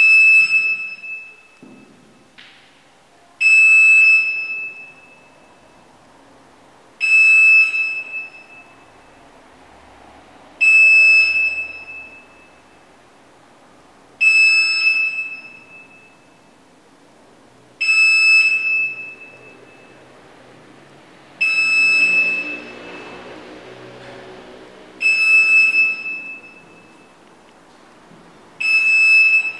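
Medical infusion pump alarm beeping: a single high electronic tone about every three and a half seconds, each beep sharp at the start and fading over about a second.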